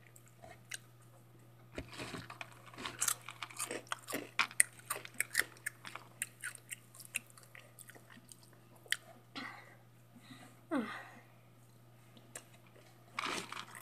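Hot Cheetos being chewed close to the microphone: a few seconds of rapid, crisp crunching, then slower, sparser chewing.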